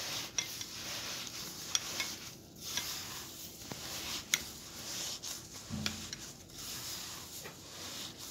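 Gloved hands kneading dry fine bulgur with onion and pepper paste in a stainless steel bowl: a continuous gritty rustling, with scattered light clicks.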